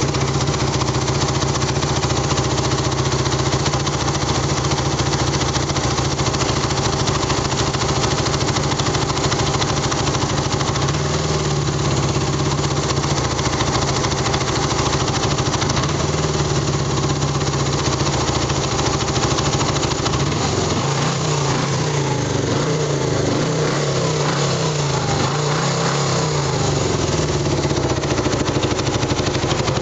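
Yamaha XS250 parallel-twin motorcycle engine running at idle, a bit rattly, on a bike just brought back to life after a long time off the road. In the second half the engine speed rises and falls a few times.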